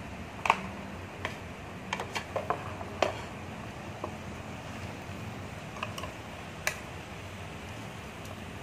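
A pot's plastic lid and chopsticks clicking and knocking against the pot: about a dozen short, sharp clicks, most in the first three seconds and a few more near six to seven seconds, the loudest about half a second in, over a steady low hum.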